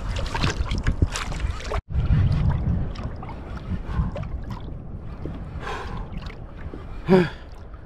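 Water rushing and splashing along a fishing kayak's hull as a large hooked fish tows the kayak. The sound breaks off for an instant about two seconds in, and a short burst of the angler's voice comes near the end.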